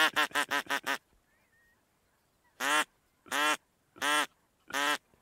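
A duck quacking loudly: a quick run of about six short quacks in the first second, then four single quacks spaced about two-thirds of a second apart.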